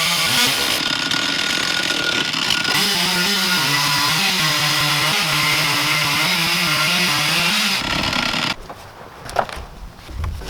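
Stihl MS 460 two-stroke chainsaw running at high throttle, cutting a slab through a log on an Alaskan chainsaw mill, with a steady engine note and a loud hiss of chain through wood. It stops abruptly about eight and a half seconds in, leaving a few faint clicks.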